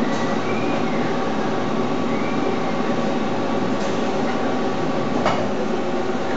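Robotic machine-tending cell of a Fanuc R2000 robot and a CNC lathe: a steady machinery hum with several held motor tones, two short whines rising and falling in pitch in the first half, and two sharp clicks about four and five seconds in.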